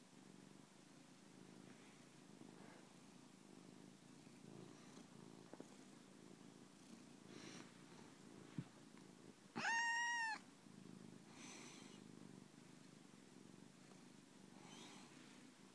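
Domestic cat purring steadily and softly, with one loud meow about ten seconds in and a few faint short calls around it.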